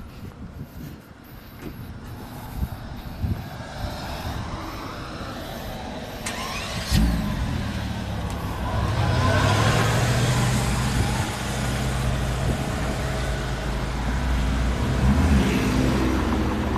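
Mercedes-AMG G-Class SUV's engine starting about seven seconds in, then running with the revs rising as the SUV pulls away.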